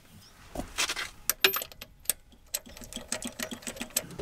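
Hand ratchet on a 5/8 spark plug socket clicking in a quick, even run of about seven or eight clicks a second, from about halfway in. A few scattered clicks and knocks come before it.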